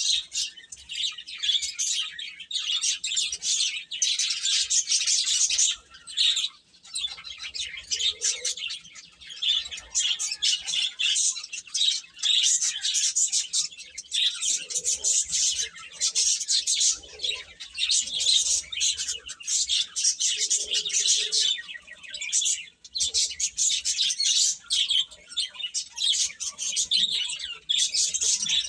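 Baby chicks cheeping continuously: many rapid, high-pitched peeps overlapping, with a few brief lower calls mixed in.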